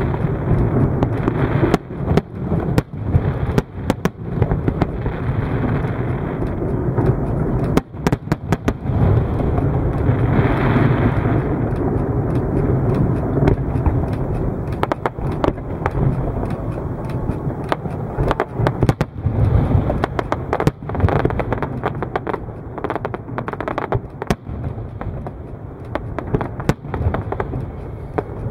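Aerial firework shells and rockets going off in rapid succession: many sharp bangs and crackles over a continuous low background noise.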